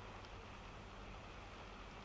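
Rain heard from inside a moving car's cabin: a soft, steady hiss over a low road rumble, with a couple of faint drop ticks.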